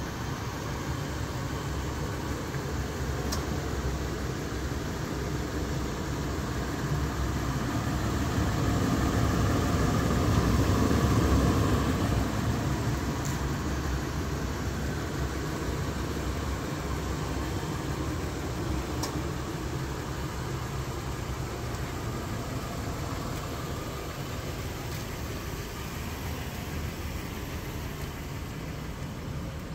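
Toyota 4Runner's 4.0-litre V6 idling steadily, a low hum with some hiss that grows louder about ten seconds in and then eases off.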